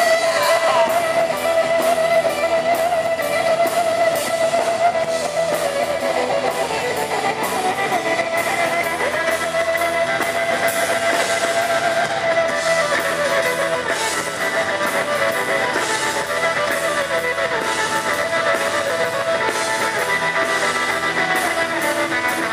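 Live rock band playing an instrumental passage: electric guitar holds long notes that bend up and down in pitch over strummed guitars.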